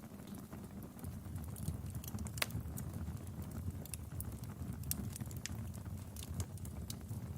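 Wood fire crackling in a fireplace: scattered sharp pops and snaps at an uneven pace, the loudest about two and a half seconds in, over a steady low rumble.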